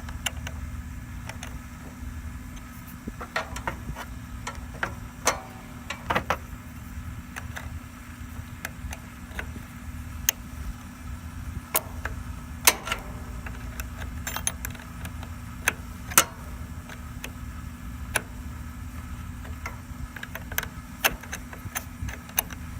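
Irregular metallic clicks and taps of a 10 mm wrench working a nut on a lawn-tractor battery terminal, over a steady low hum.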